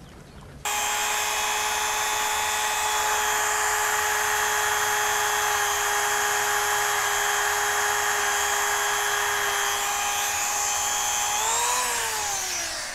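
Goxawee rotary tool (a generic Dremel) running with a steady whine, its felt polishing wheel burnishing the plastic button openings of a remote housing. It starts abruptly about half a second in. Near the end it rises briefly in pitch, then winds down as it is switched off.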